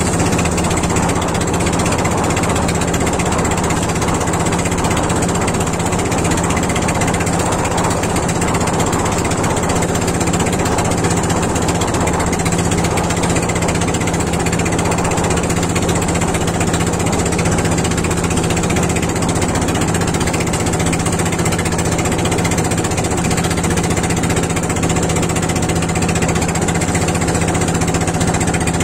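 Engine of a motorized outrigger boat (bangka) running steadily under way, a loud, even drone with a constant low hum that doesn't change.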